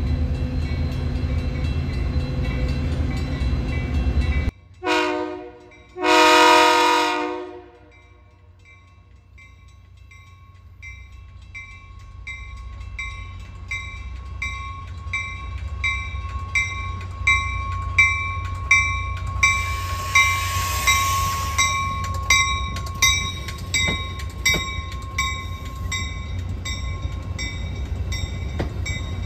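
A train rumbles steadily until the sound cuts off abruptly. A locomotive horn then gives one short blast and one longer blast. Afterwards a bell rings with an even beat while a train's low rumble slowly builds, with some clicking of wheels over rail joints.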